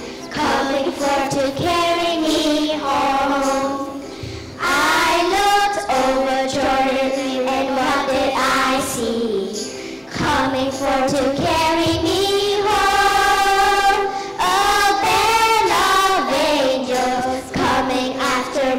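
A group of young children singing a song together into microphones, in phrases of held notes with short breaks between them.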